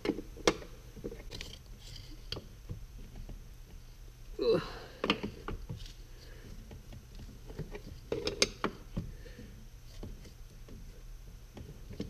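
Combination wrench clicking and knocking on a seatbelt retractor's anchor bolt as it is tightened by hand, in short scattered clusters: once near the start, a few seconds in, and again about eight seconds in.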